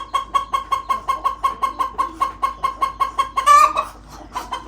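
A chicken clucking rapidly and evenly, about six clucks a second, with one louder squawk about three and a half seconds in. The bird is calling for its chicks, which have just been separated from the flock.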